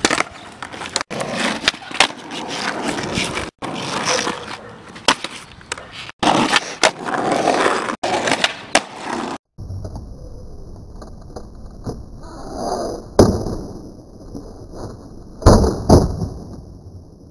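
Skateboard wheels rolling over concrete and asphalt, with sharp clacks of the board striking the pavement during tricks, the loudest two near the end. The sound stops and restarts abruptly several times where short clips are joined.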